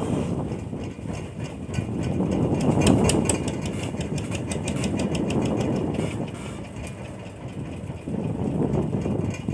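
A boat engine running steadily, with a rough, uneven rumble. From about two and a half to six seconds in there is a rapid fine ticking over it.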